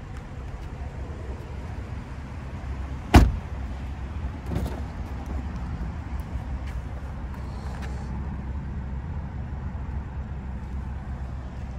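A car door of a 2020 BMW 840i Gran Coupe shutting with one sharp, loud thump about three seconds in, then a softer latch knock about a second and a half later as the rear door is opened. A steady low background rumble runs underneath.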